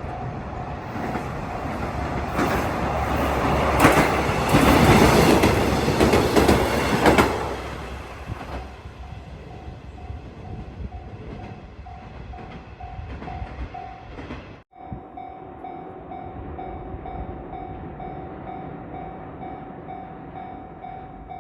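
Japanese level-crossing alarm ringing its steady, rapidly repeated tone while a train passes. The train is loudest about four to seven seconds in, with its wheels clattering over the rail joints, then fades away. The crossing alarm keeps ringing, louder after a brief break in the sound.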